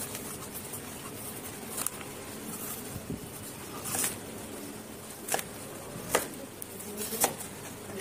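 Kitchen knife cutting through orange wedges and striking a plastic cutting board: about five sharp taps, a second or so apart, over a steady low hiss.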